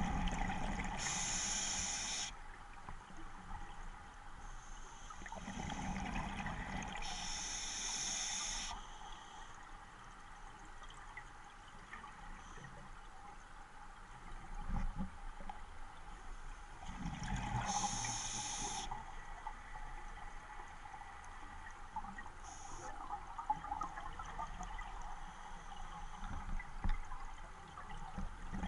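A scuba diver breathing through an open-circuit regulator underwater: slow breaths several seconds apart, each inhalation a hiss through the regulator and each exhalation a burble of bubbles. There are four hissing inhalations, the last one brief.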